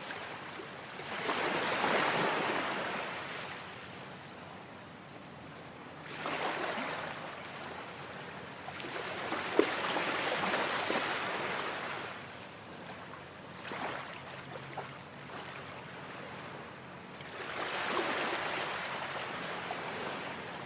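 Sea waves breaking on an open beach: a steady rush of surf that swells into a louder wash every few seconds and then draws back.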